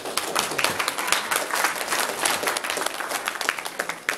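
A room of guests applauding: many hands clapping densely, following a toast.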